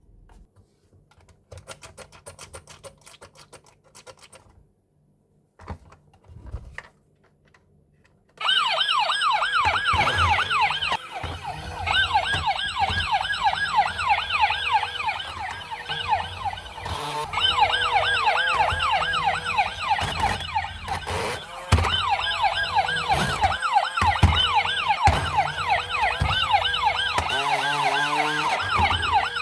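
Light clicks and handling noise, then about eight seconds in a toy vehicle's electronic siren switches on loud and wails in quick repeated rising sweeps, with a few knocks under it.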